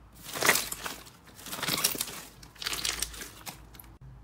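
Clear slime full of trapped air bubbles being pressed and squished, giving three crackling bursts about a second apart.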